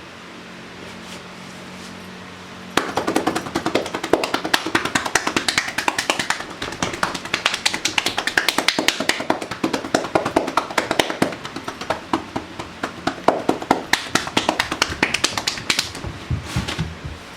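Massage tapotement: a therapist's hands striking the client's body in fast, uneven percussive slaps. It starts suddenly about three seconds in, keeps going for about fourteen seconds and stops near the end.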